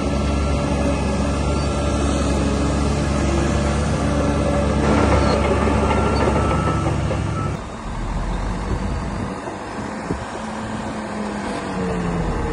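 Diesel engine of a DH17 C2 LGP crawler bulldozer running steadily under load. About two-thirds of the way through its note shifts and the level drops slightly.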